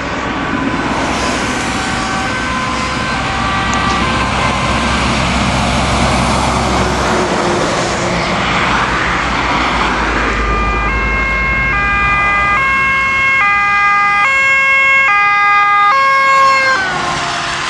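Ambulance two-tone siren, alternating a high and a low note, louder in the second half and cutting off near the end with a short falling glide. Road rumble from passing traffic sits underneath.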